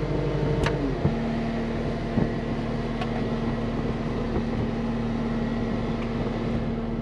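Diesel engine of a compact track loader running steadily, its revs dropping a step about a second in and then holding at idle. A couple of sharp clicks over it.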